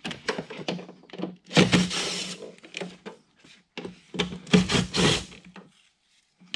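Plastic trim cover and hand tools being handled: scattered clicks and knocks, with two longer scraping rasps, about a second and a half in and again at about four and a half seconds.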